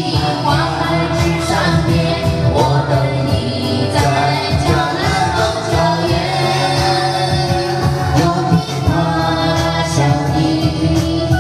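A woman singing karaoke into a microphone over a pop backing track with a steady beat.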